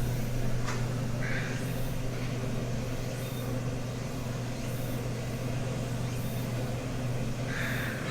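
Steady low mechanical hum over a noisy background, with a short click about a second in.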